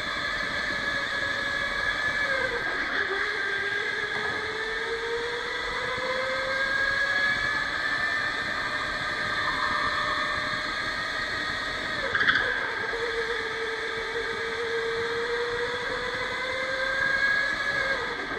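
Electric go-kart motor whining as the kart laps. The pitch climbs as it gathers speed and drops sharply when it slows, about two and a half seconds in and again near the end. A brief knock comes about twelve seconds in.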